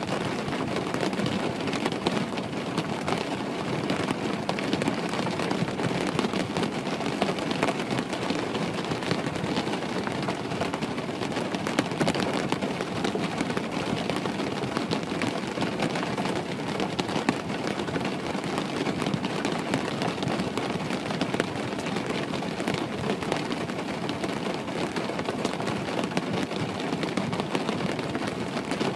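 Steady rain hitting a window pane: a dense, even hiss scattered with many small drop ticks, without let-up.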